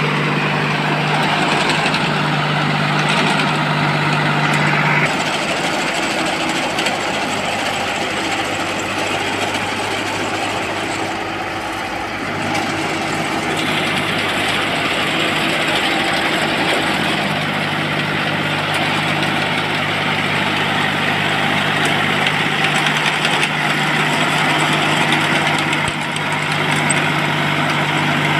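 Engine of a home-built crawler-tracked paddy spraying machine, driving its hydraulic drive, running steadily. The engine note shifts about five seconds in and again around the middle.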